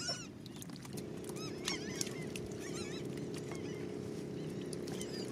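Birds chirping with many short, arched high calls, over which a steady engine hum sets in about a second in and holds.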